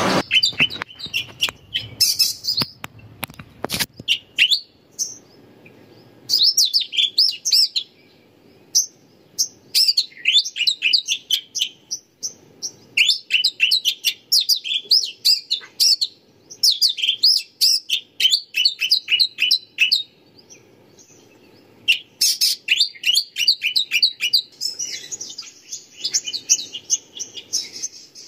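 Small birds chirping and chattering in quick bursts of high notes, a second or two each, with short pauses between them. A few sharp clicks in the first few seconds.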